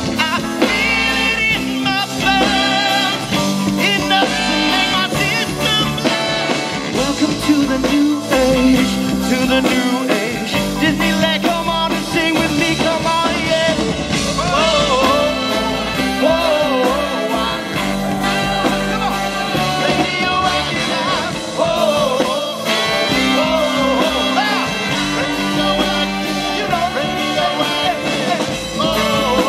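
Live swing band playing a song, with a singer's voice over the band.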